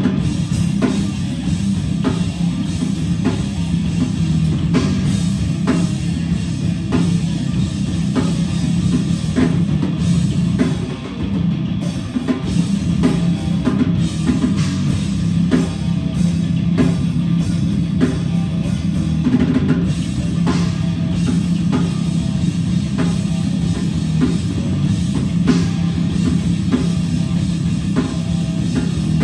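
A heavy metal band playing live: electric guitar, bass guitar and a drum kit with a steady, driving beat. The cymbals stop for a moment about ten seconds in.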